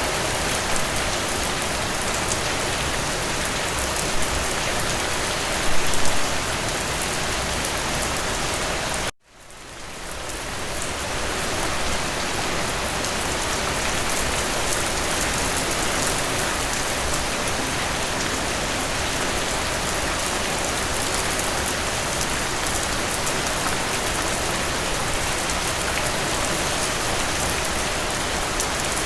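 Steady rain falling, an even hiss of many drops. About nine seconds in it cuts out for a moment and fades back in over a second or two.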